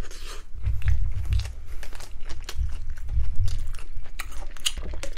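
Close-miked biting and chewing of a spicy Lotteria hot chicken folder burger: crunchy chewing made of many small crackles, with heavier low thuds around one and three seconds in.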